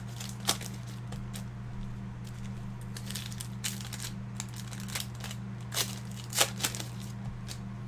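Scattered crinkles and clicks of plastic card wrappers and packaging being handled, a few at a time with pauses between, over a steady low electrical hum.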